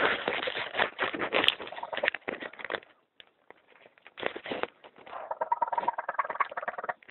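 Baby raccoon kit crying: harsh, crackly chittering for the first few seconds, then after a short pause a higher, bird-like trilling cry. The kit is orphaned, calling without its mother.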